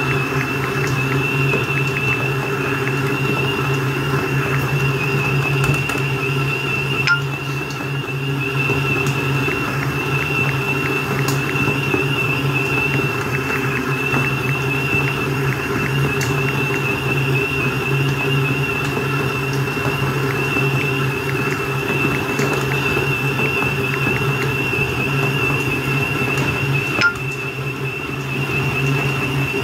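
Electric stand mixer running steadily, its motor giving a constant high whine over a low hum while it kneads bread dough. A couple of faint knocks come through, one about a quarter of the way in and one near the end.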